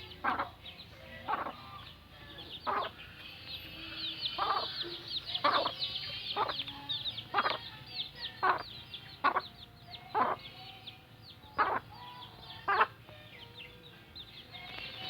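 Hen clucking steadily, about once a second, while her chicks peep continuously in high, rapid chirps.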